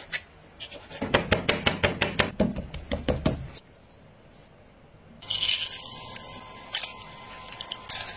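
A cleaver chopping pork on a cutting board in rapid strikes, about six a second, for a couple of seconds. After a short pause, about five seconds in, hot oil sizzles steadily in a pot with dried chillies and whole spices being stirred.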